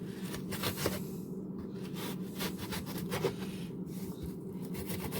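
Kitchen knife cutting up a red onion on a cutting board: a run of light taps and scrapes of the blade against the board, over a steady low hum.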